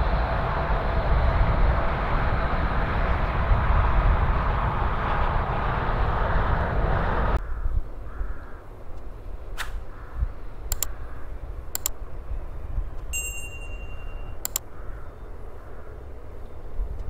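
Jet noise from a landing Boeing C-40A Clipper, a 737-700 with CFM56-7 turbofan engines, steady and loud, cut off abruptly about seven seconds in. After the cut comes a quieter low rumble with several sharp clicks and a short chime-like ding about thirteen seconds in.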